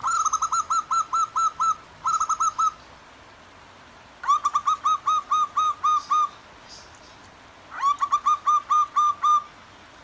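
Zebra doves (perkutut) calling: four quick runs of short, clear repeated cooing notes, each run lasting one to two seconds. Beneath them is a faint steady sound of running water.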